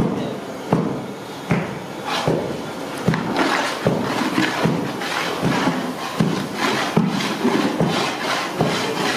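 Long-handled metal ladle stirring grated pumpkin in a large metal pan, scraping through the mass and knocking against the pan about every three-quarters of a second.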